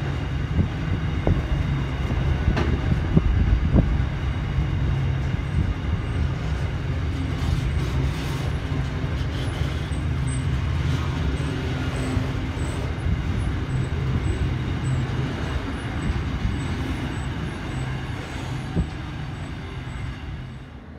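Container freight train rolling past: a steady low rumble of its wagons and wheels on the track, with scattered short knocks. The sound eases off near the end as the last wagon goes by.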